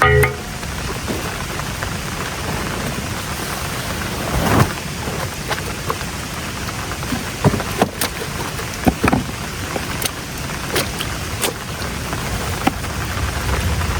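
Steady heavy rain falling, with scattered sharp drips and splashes on top.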